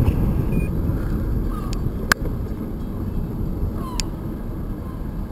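Wind rushing over the microphone and tyre rumble from a moving bicycle, with two sharp clicks about two and four seconds in.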